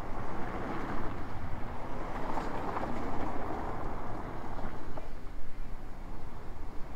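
Outdoor street ambience with a vehicle passing, swelling about two to three seconds in and then fading.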